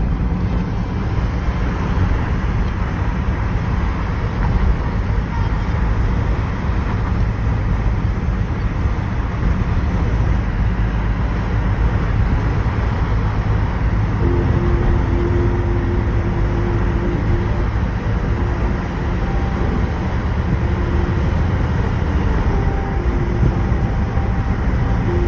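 Steady rumble of a moving road vehicle, engine and road noise, with a faint steady tone coming in about halfway through.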